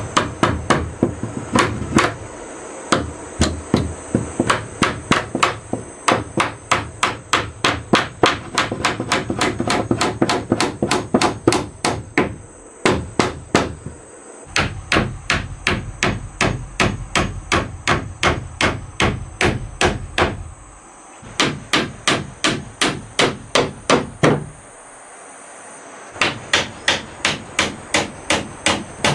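Hammer driving nails into wooden wall planks: long runs of sharp, even strikes, about three to four a second, broken by a few short pauses.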